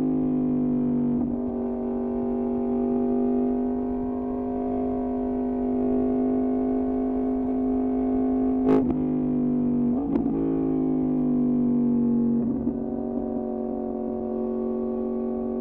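Yamaha MT-10's crossplane inline-four with an Austin Racing exhaust running at steady high revs on the move. There is a sharp crack about nine seconds in and a quick dip in pitch about a second later, after which it runs on at slightly lower revs.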